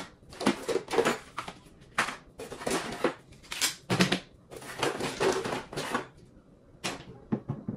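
Small makeup containers (foundation bottles, compacts, lipstick tubes) clicking and knocking as they are taken out of a bag and set down on the floor one after another, with short rustles between, in an irregular patter.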